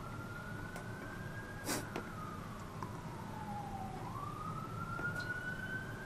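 Emergency-vehicle siren wailing: its pitch rises slowly, slides down over about two seconds, then rises again. A single short tap sounds about two seconds in.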